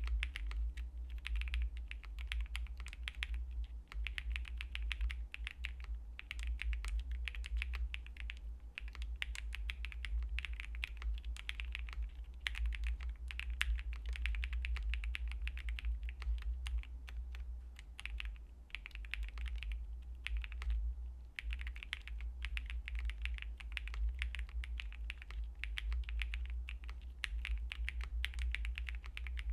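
Fast typing on a Space65 R3 custom mechanical keyboard with Nebula switches, a POM plate, a PE foam mod and GMK keycaps. The keystrokes come in dense runs of a few seconds, with brief pauses between them.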